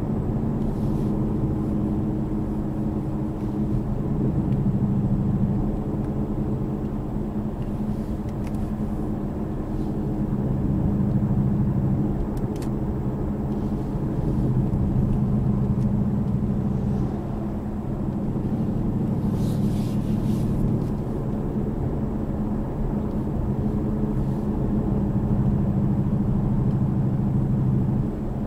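Car engine and tyre noise heard from inside the cabin while cruising at about 40 mph, a steady low hum that swells and eases a little every few seconds, with a few faint ticks.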